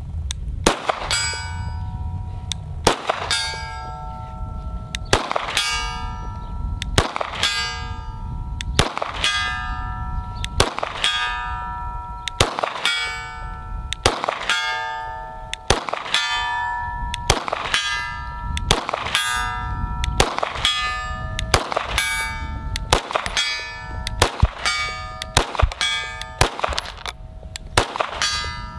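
Pistol rounds striking a steel target again and again, about one hit a second and quickening near the end. Each sharp crack is followed by the steel ringing on the same few metallic pitches.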